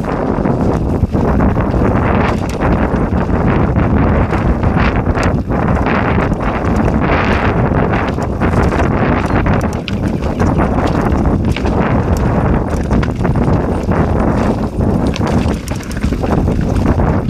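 Mountain bike riding a dirt trail at speed: continuous tyre noise with many small knocks and rattles from the bike over the ground, and wind buffeting the microphone.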